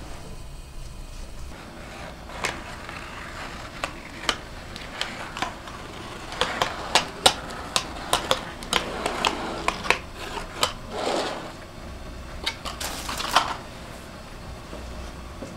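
Dishes and kitchen utensils being handled: scattered sharp clicks and clinks, coming thickest in the middle, with two brief swishing noises near the end.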